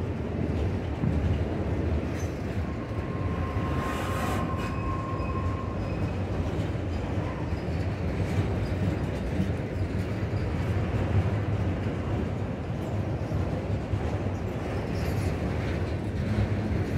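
Freight train of autorack cars rolling past: a steady rumble of steel wheels on rail, with a faint thin ringing tone for a few seconds near the start.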